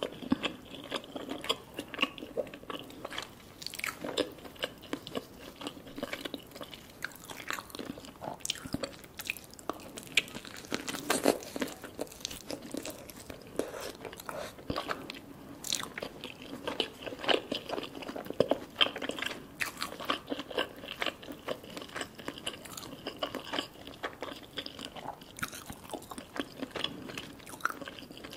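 Close-miked chewing and biting of tandoori chicken: steady mouth sounds broken by many short, sharp clicks as each bite is worked.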